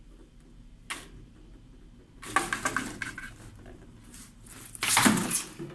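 Small hard objects knocking and clattering in short bursts: a single click about a second in, a rattling cluster a little later, and the loudest clatter near the end.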